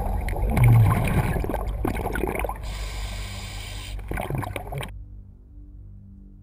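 Underwater water noise with the gurgle and crackle of scuba divers' exhaust bubbles, gradually fading. About five seconds in it cuts off to a faint low hum.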